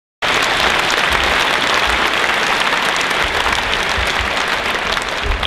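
Audience applauding: dense, steady clapping that cuts in abruptly and thins a little near the end.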